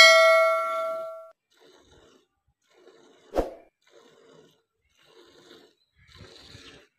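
A bright bell-chime sound effect rings and fades out over about a second, the notification ding of a subscribe-button animation. After it come faint, regular squirts of milk into a metal pot as a cow is hand-milked, with a single sharp knock a little after three seconds in.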